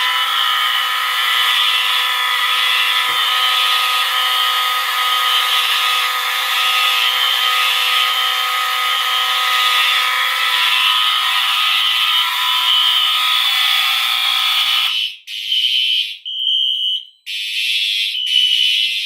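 Several Siemens fire alarm sounders going off together in a loud, dense, steady alarm. About fifteen seconds in most of them cut out at once, leaving a single high-pitched tone pulsing on and off in short bursts.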